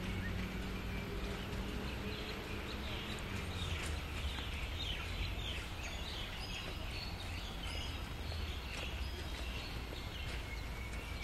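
Small birds chirping in quick, repeated calls over a steady background hiss, the chirping busiest in the middle of the stretch. A low engine hum fades out in the first few seconds.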